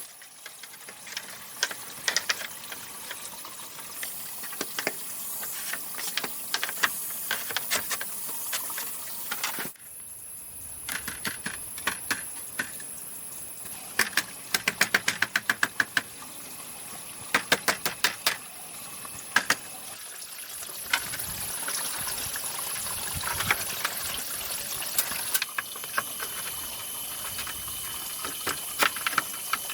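Hand work on bamboo: irregular knocks and clicks, some in quick runs of several strokes, over a steady high-pitched hiss.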